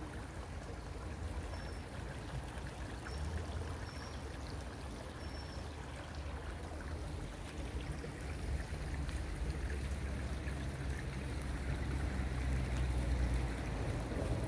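Small garden stream running over rocks: a steady trickling rush of water, under a low rumble that grows louder in the second half. A few faint, short high chirps sound in the first few seconds.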